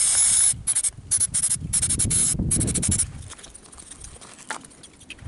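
Aerosol brake cleaner sprayed in a run of short hissing bursts into a motorcycle carburettor's float bowl over the first three seconds, to wash out the gummed-up fuel deposits. It goes quieter after that, with a faint click near the end.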